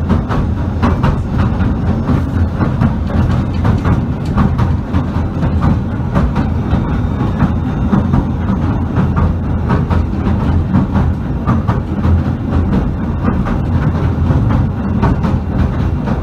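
Southend Pier Railway train heard from inside the carriage as it runs along the pier: a steady low rumble with frequent clattering knocks of the wheels on the rails.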